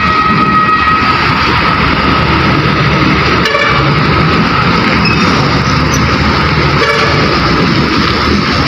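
Heavy diesel engines of container-yard vehicles running loudly, with a flatbed container truck driving past close by. A steady high whine sounds through the first second and fades, and there are a couple of brief knocks.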